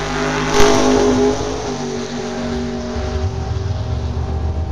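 Drag car engine revving at the starting line, then launching at full throttle with a sharp crack about half a second in. The loud engine note drops away over the next couple of seconds as the car runs off down the track, leaving a low rumble.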